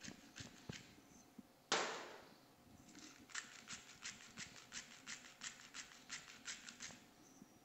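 Hand-twisted pepper mill grinding over a small steel bowl, a run of faint dry clicks at about four a second. One louder, sharper sound breaks in about two seconds in.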